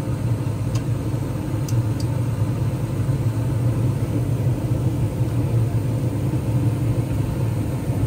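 Gas furnace firing, its burners and draft inducer blower making a steady, pretty loud rumble; the burners are over-fired, the manifold pressure at 3.85 inches of water column, just above the rated 3.2 to 3.8. A few light clicks in the first two seconds as the screwdriver works at the brass cap of the gas valve's regulator.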